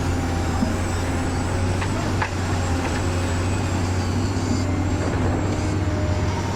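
A radio-controlled truck running with a steady low hum, with a couple of faint clicks about two seconds in.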